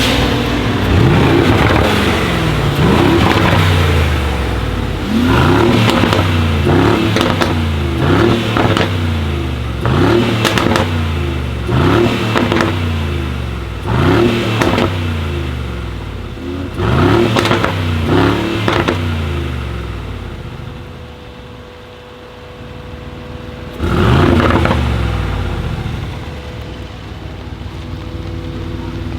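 Mercedes-AMG G63's twin-turbo V8 through an Akrapovic exhaust being revved while standing, a quick run of a dozen or more blips one to two seconds apart, each rising and falling back. It then settles to idle, and one last big rev comes near the end.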